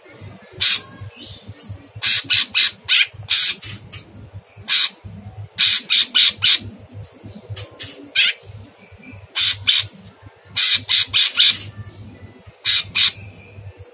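A cucak cungkok leafbird gives loud, harsh, rasping call notes in rapid volleys of three to six, one volley every second or two. This is the rough-voiced 'shooting' singing that keepers prize.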